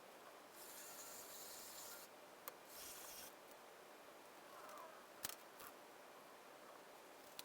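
Near silence broken by two short, faint scraping or rubbing strokes in the first few seconds, then a few light clicks.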